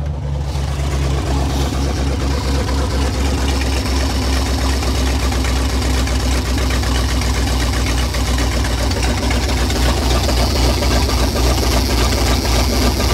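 1962 Ford C750 cabover's 332 Y-block V8 idling steadily, just fired up while still cold.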